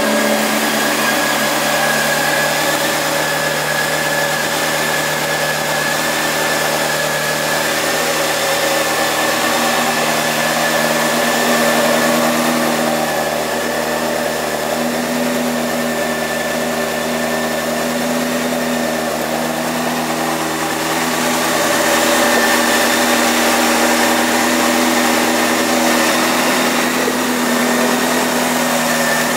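2005 Honda CBR600F4i's 599 cc inline-four engine idling steadily, a little louder from about 22 seconds in.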